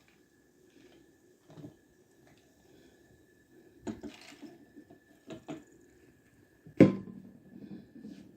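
A few knocks and clicks of objects being handled. The loudest is a sharp clunk near the end with a short ringing after it.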